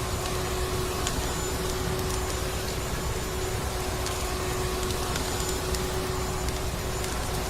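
Vacuum cleaner running steadily, its motor holding one constant whine over a dense rush of air, with a few sharp crackling pops of a wood fire scattered through.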